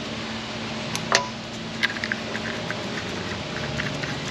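Small clicks and taps of a pulley puller's parts being handled and fitted onto a pulley, with one sharper clack about a second in. A steady low hum runs underneath.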